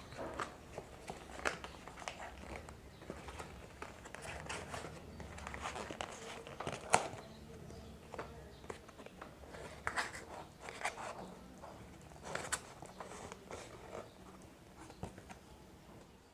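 Close-miked chewing and crunching of crispy fried chicken: irregular crackles, with a few sharper crunches around 7, 10 and 12½ seconds in.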